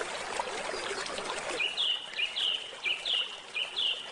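Stream water trickling and babbling, with a bird calling five times in a row from about halfway through: short, high notes that drop in pitch, about 0.7 s apart.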